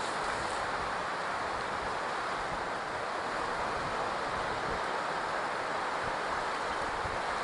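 Steady wash of ocean surf breaking on a beach, mixed with wind, an even noise with no distinct events.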